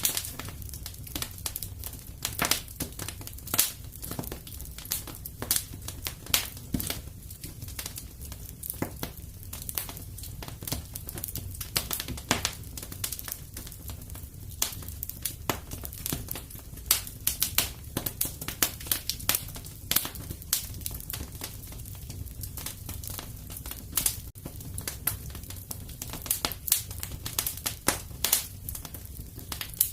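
Wood fire crackling in a fireplace: irregular sharp pops and snaps, a few louder than the rest, over a steady low rumble of the flames.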